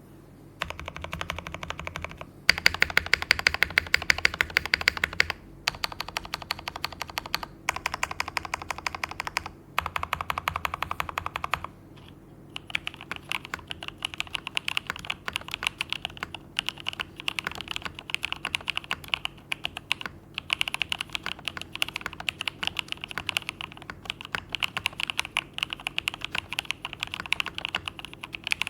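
Fantech Maxfit70 gasket-mount mechanical keyboard with lubed Jwick Black linear switches being typed on. First comes a run of short bursts of very rapid key presses, each broken off by a brief pause. About twelve seconds in, steady continuous typing takes over.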